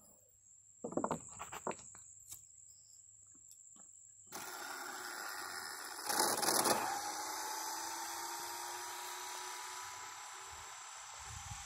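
Arrma Limitless RC car on 8S power, its electric motor whining with a pitch that rises steadily as it accelerates on a speed pass. A brief loud burst of noise comes about six seconds in, and the first few seconds are quiet apart from a few faint clicks.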